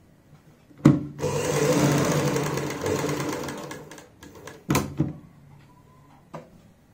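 Sewing machine stitching a neckline facing along the buckram: a run of about three seconds that tapers off. Sharp clicks come just before the run and again a second or so after it stops.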